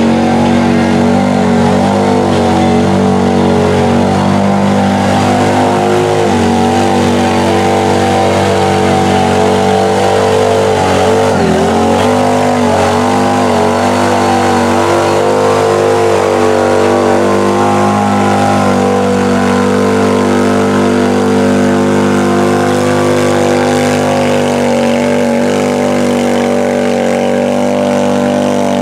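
Engine of a Polaris side-by-side on giant paddle-style mud tyres running hard at high, steady revs as it churns through a deep mud hole. The pitch dips briefly about eleven seconds in, then holds again.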